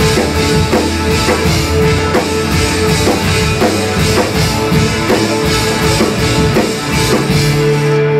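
Live rock band playing: electric guitar and bass guitar with two violins and a cello, over a steady beat of about two and a half strokes a second.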